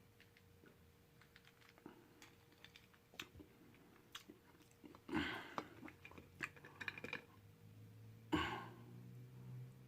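A person chewing food close to the microphone, faint, with many small wet mouth clicks. Two louder mouth sounds come about five and eight seconds in.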